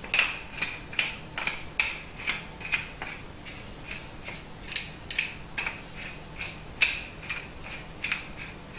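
Wooden pepper mill grinding black peppercorns, twisted back and forth by hand: a run of short crunching clicks, about two or three a second.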